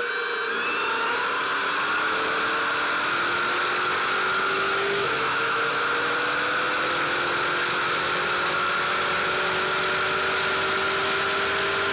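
Stadium Super Truck's V8 engine heard from inside the cockpit, pulling with its pitch rising slowly and steadily, with a steady high whine alongside it.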